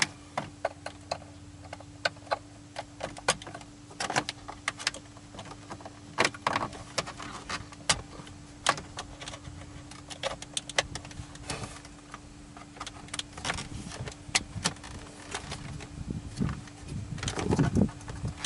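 Irregular sharp clicks and light plastic knocks of wiring connectors and a dash trim bezel being handled and pressed into a Dodge Ram pickup's dashboard, over a steady hum. Louder knocking and rustling near the end.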